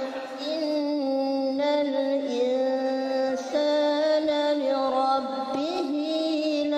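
Women's voices reciting the Quran in a melodic chant, with long held notes that bend and turn slowly in pitch.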